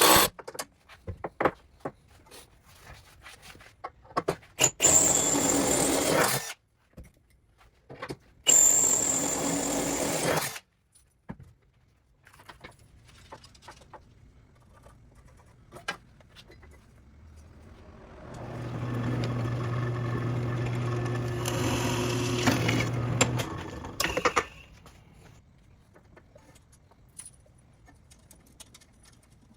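Workshop tool work: two loud power-tool runs of about two seconds each, then a longer run of about five seconds with a steady motor hum, between scattered clicks and knocks of handling.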